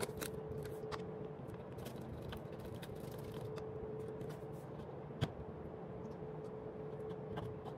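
Light handling of plastic food packaging, soft rustles and small ticks, with one sharper click about five seconds in, over a steady low hum with a faint steady tone.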